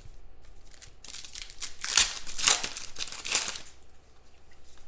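Trading cards being handled and flipped through by hand: a few rustling, sliding swipes of card against card between about one and three and a half seconds in.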